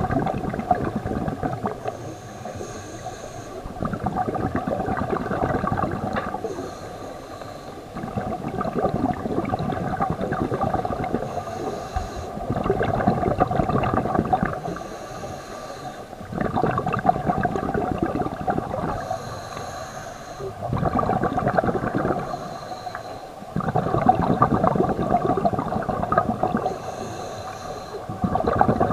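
Scuba regulator breathing underwater: a rumbling burst of exhaled bubbles every three to four seconds, each lasting two to three seconds, with a brief hiss of inhaled air in the quieter gaps between.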